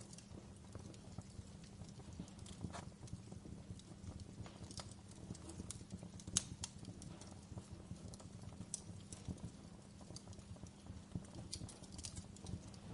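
Wood fire burning in a fireplace, crackling: irregular sharp pops and snaps over a low steady rumble, with the loudest pop about six seconds in.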